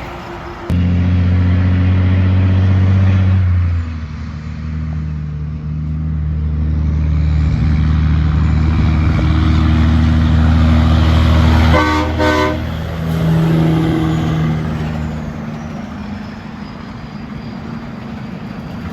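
Heavy-vehicle air horn sounding in long steady blasts, with a quick run of short toots about twelve seconds in and one more blast after, while the vehicle's noise swells and fades as it passes.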